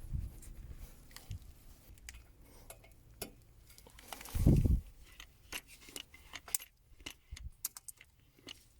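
Metallic clicks and clinks of a hand grease gun being fitted to a pivot-pin grease nipple and worked, with a single dull thud about four and a half seconds in.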